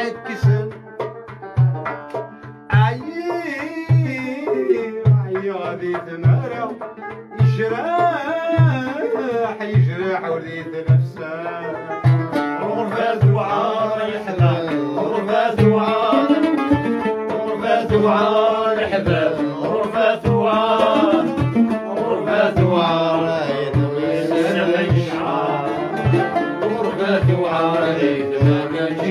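Live Kabyle chaabi music: a classical guitar and a chaabi banjo playing together over a steady low drum beat about twice a second, with a man singing an ornamented, wavering melody that grows fuller about seven seconds in.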